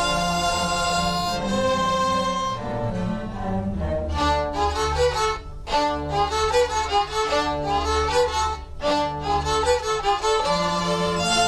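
String orchestra, led by violins, playing music to a film clip: held chords at first, then from about four seconds in a quicker passage of short, rhythmic notes, returning to held chords near the end.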